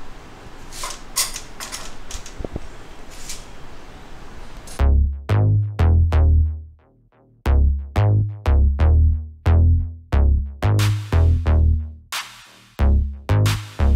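Faint room noise with a few light clicks, then electronic background music with a heavy drum-machine beat that starts suddenly about five seconds in.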